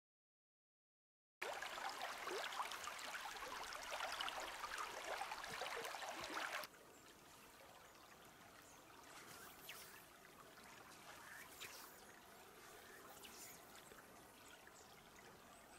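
After a second and a half of silence, river water trickling and splashing close by. About six and a half seconds in it cuts to a quieter, steady murmur of the river with a few faint ticks.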